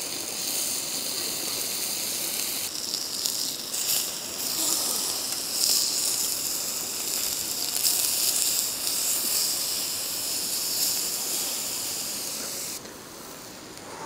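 Beef sizzling and spitting on a hot grill, a dense crackling hiss. It swells louder about three seconds in and falls back near the end.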